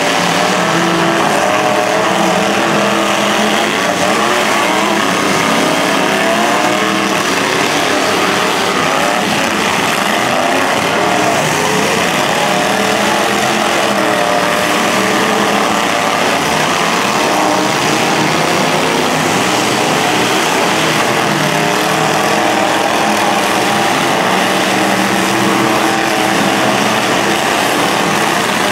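Several demolition derby trucks' engines running and revving at once, their pitches wavering up and down over one another without a break.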